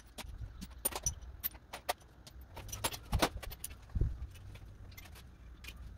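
Metal hand tools and hardware clinking and clattering as they are handled: a string of irregular sharp clinks, with a louder clink about three seconds in and a duller knock about a second later.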